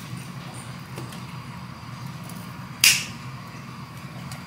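Scissors snipping through a dead plant stem: one sharp, loud snip about three seconds in, with a faint click about a second in, over a low steady hum.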